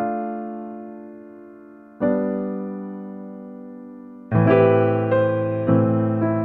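Background piano music: slow chords left to ring and fade, a new one about two seconds in, then louder, quicker notes from about four seconds in.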